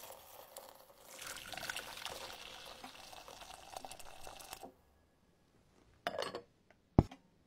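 Water pouring from a kettle onto dry instant noodles in a ceramic bowl for about four and a half seconds, then stopping. About a second and a half later come two short knocks, the second sharper, as a cover is set over the bowl.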